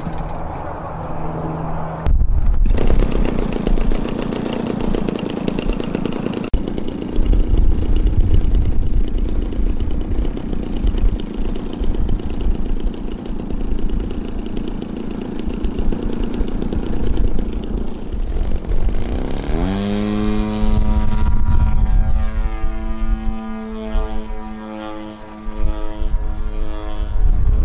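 Large radio-controlled aerobatic plane's motor and propeller running at low power, then louder from about two seconds in. Toward the end the pitch rises as it throttles up for take-off, then holds steady at high power.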